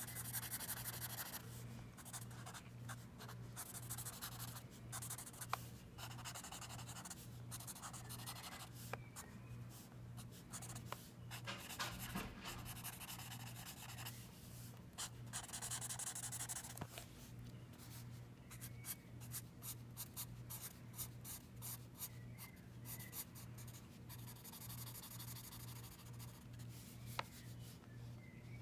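Sharpie felt-tip marker rubbing and scratching across sketchbook paper in many short strokes and a few longer sweeps, inking and filling in solid black areas, under a faint low steady hum.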